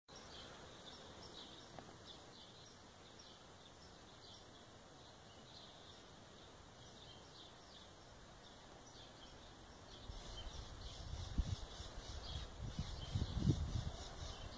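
Small birds chirping in quick, high, irregular calls. From about ten seconds in, a low rumble on the microphone joins them and grows louder.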